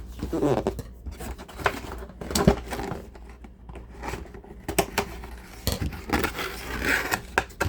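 Toy packaging being handled: irregular clicks, knocks and crinkling of plastic and cardboard as the box is worked at, with the sharpest knock about two and a half seconds in.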